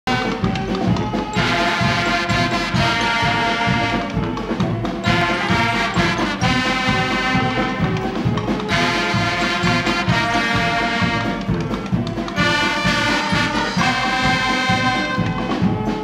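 Guggenmusik carnival brass band playing: trumpets, trombones and saxophones blaring a tune in phrases of three to four seconds over a steady pounding low beat.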